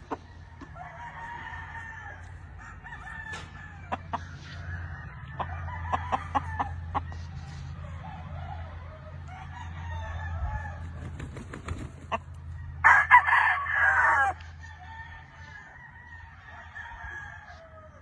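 Gamefowl rooster crowing once, loudly, about two-thirds of the way through, with about a second and a half of crow, over ongoing clucking and calls from chickens and scattered clicks.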